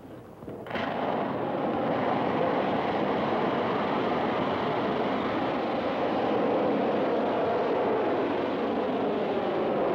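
Rocket motor igniting less than a second in, followed by a loud, steady rushing roar of exhaust as the weather-research rocket lifts off and climbs.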